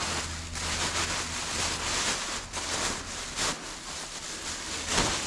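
Dry fallen leaves rustling and crunching irregularly as a person moves over the leaf litter and handles things on the ground, with a few louder crunches.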